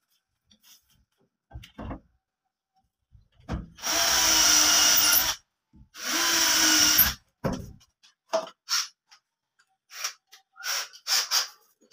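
Cordless drill running in two steady bursts of about a second and a half each, boring or driving screws for a handle into a wooden wardrobe door. A few short clicks and knocks follow near the end.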